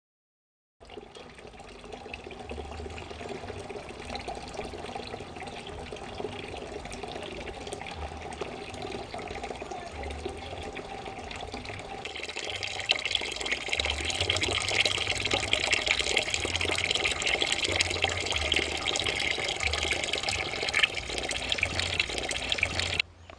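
Water running from a tap into a plastic jerrycan, filling it. The rushing grows louder and higher about halfway through, then cuts off abruptly near the end.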